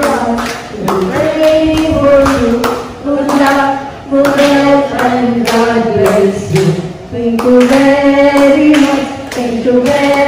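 An elderly woman singing a slow thank-you song into a handheld microphone, holding long notes.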